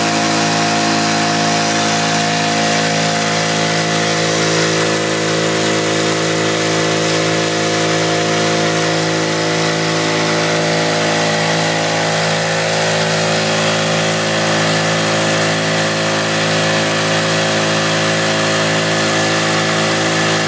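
The motor and pump of a small test gold dredge running steadily, a loud, even machine hum holding the same several tones throughout.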